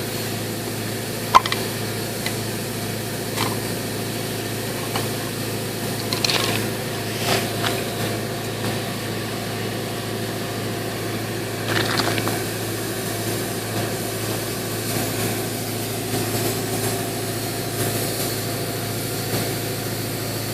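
A machine running at a steady idle-like hum, with a few light knocks and clatters on top, the sharpest about a second in.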